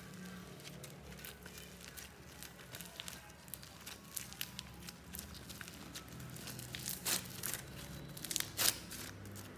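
Clear slime being kneaded by hand with soft modelling clay worked into it. It gives sticky crackling and popping clicks, coming thickest and loudest about seven and eight and a half seconds in.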